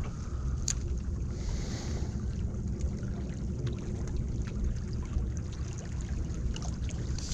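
Wind buffeting the microphone as a steady low rumble, with small sea waves washing against the rocks of a breakwater.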